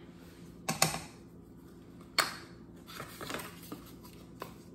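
A few sharp clicks and taps of a measuring spoon and a plastic tub's snap-on lid being pressed shut, the sharpest click about two seconds in.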